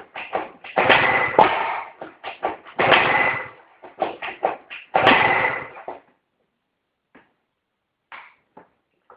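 Two-stroke engine of a 70cc big-bore Yamaha BWS/Zuma scooter being kicked over, about three long cranking bursts roughly two seconds apart with shorter knocks between them, without catching: the engine won't start. Near the end it goes quiet apart from a few light clicks.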